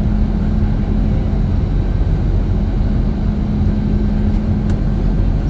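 Jet airliner cabin noise: a steady rush of engine and airflow noise with a constant low hum.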